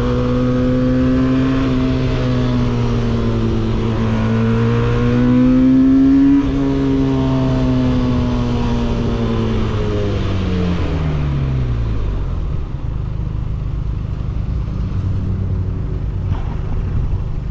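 Benelli 302S parallel-twin motorcycle engine heard on board through an aftermarket exhaust. It pulls steadily and rises in pitch to a peak about six seconds in, then the throttle closes and the revs fall away over several seconds to a low, steady idle.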